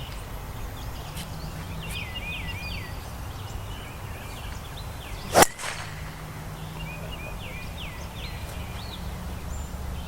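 A golf driver striking a ball off the tee: one sharp crack about five seconds in. Birds chirp repeatedly and a steady low wind noise sits underneath.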